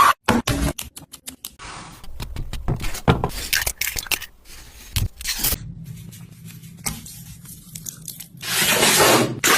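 Kitchen food-preparation handling sounds: scraping and tearing noises with clicks, coming in short, abruptly cut bursts, and a louder rush of noise about a second long near the end.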